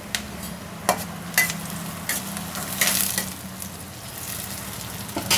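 Chopped onions, green chillies and curry leaves sizzling in hot oil in a steel pan, with a steady low hum underneath. A metal spoon stirring them makes several sharp clinks and scrapes against the pan between about one and three seconds in.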